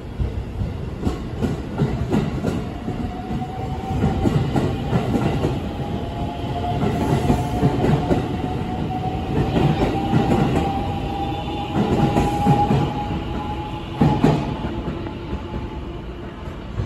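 Five-car 5000 series Marine Liner electric train pulling out and accelerating past. Its traction motor whine rises slowly in pitch, over a low rumble and the clack of wheels on the rail joints, with a louder burst of clacks near the end.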